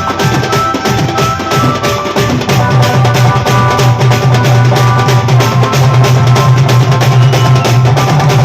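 Wedding band party music: drums beating a fast, steady rhythm under a held melody line, with a loud deep bass tone coming in about two and a half seconds in.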